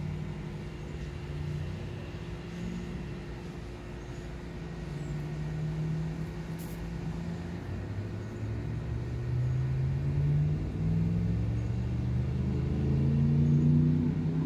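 A motor vehicle's engine running, steady at first, then rising in pitch and getting louder over the last several seconds.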